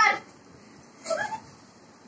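A baby's short whimpering cries, twice: a brief one at the start and a higher, rising one about a second in.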